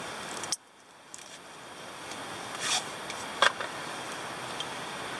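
Light handling clicks from a plastic fuel bottle being readied to fill an alcohol stove, the sharpest click about three and a half seconds in, over a steady hiss. The background drops away suddenly about half a second in and slowly comes back up.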